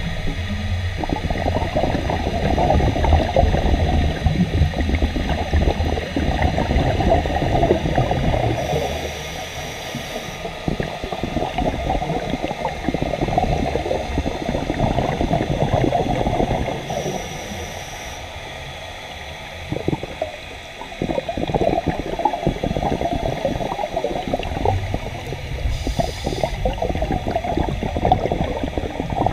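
Scuba diver breathing through a regulator, heard underwater: long crackling, gurgling bursts of exhaled bubbles. They are broken about every eight or nine seconds by a short hiss as the crackle drops away.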